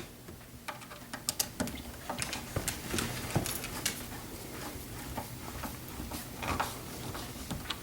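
Irregular light clicks and taps of deadbolt parts and screws being handled while the lock is worked on.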